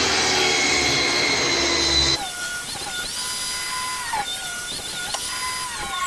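Skilsaw table saw ripping the edge off a 2x10 board, a loud dense cutting noise over the motor's hum. About two seconds in it stops abruptly and gives way to quieter steady tones that bend up and down in pitch.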